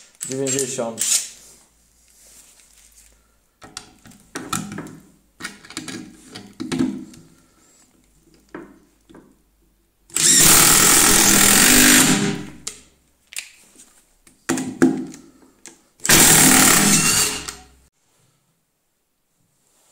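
Cordless 18 V impact tools, a Makita DTD172 impact driver and a Milwaukee M18 FIW2F12 impact wrench, hammering 4x90 mm wood screws into a timber beam: two loud bursts of rapid impacting, each about two seconds long, the first about halfway through and the second a few seconds later. Softer, shorter noises come before them.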